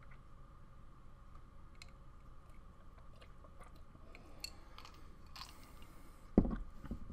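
Small gulping and mouth clicks of someone drinking water from a glass, then a loud thump about six seconds in as the glass tumbler is set down on the table, followed by a smaller knock.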